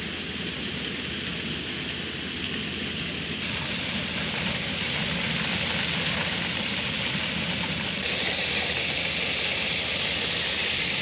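Finn bark blower truck running steadily, with the rush of air and shredded mulch blowing out of the hose; it gets louder about four seconds in.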